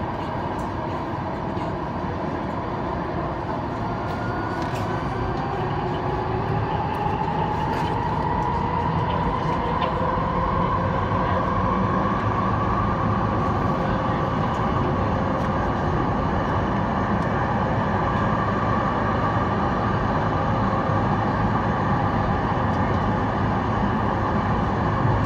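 Incheon Subway Line 2 train running through a tunnel, heard from inside the car: a steady rumble of wheels on rail with a motor whine that rises in pitch over the first half as the train gathers speed, then holds steady.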